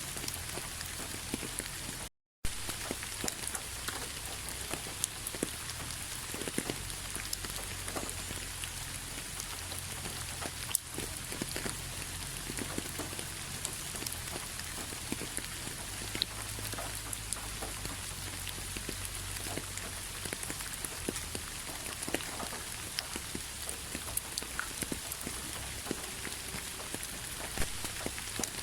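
Steady rainfall, with many separate drops ticking on a surface over an even hiss. The sound cuts out completely for a fraction of a second about two seconds in, then carries on.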